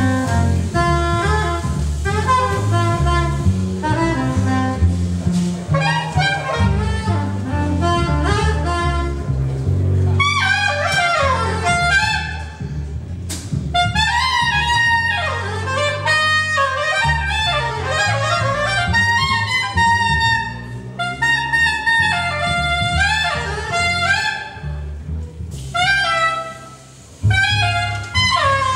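Live small-group jazz: a soprano saxophone solo over upright bass, drums and electric keyboard. About a third of the way in, the soprano line turns to fast runs with sweeping rising and falling phrases. There is a brief dip in level near the end.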